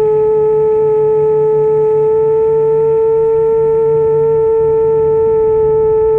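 Motors and propellers of a 7-inch long-range FPV quadcopter humming steadily in cruise flight, heard from a camera mounted on the drone: one strong steady tone with overtones, edging slightly up in pitch over the first few seconds.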